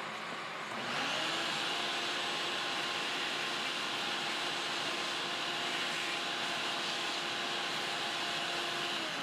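Kearney & Trecker milling machine drive starting about a second in, quickly rising to speed with a steady whine, running evenly, then shutting off at the end and winding down in pitch as it coasts.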